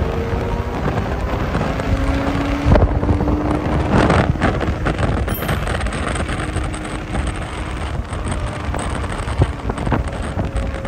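Wind rushing over the microphone and road noise from an Ola S1 Pro electric scooter accelerating from about 40 to 60 km/h, with a faint whine that rises slowly in pitch. Two louder surges come about three and four seconds in.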